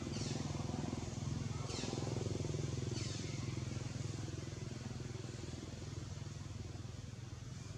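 A steady low motor drone with a fast, even pulse, like a small engine running, with three short high-pitched calls that fall in pitch in the first three seconds.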